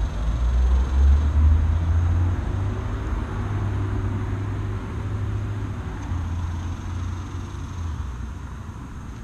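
Low rumble of a passing motor vehicle, with a faint engine hum that comes up a couple of seconds in and fades out near the end.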